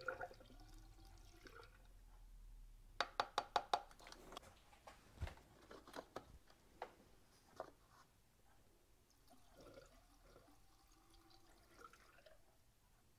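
B-12 cleaner being poured faintly through a funnel into a spark-plug hole twice, once at the start and once near the end, dosing the cylinders for a piston-ring soak. Between the pours come a quick run of about eight sharp clicks and a few single clicks of tools in the engine bay.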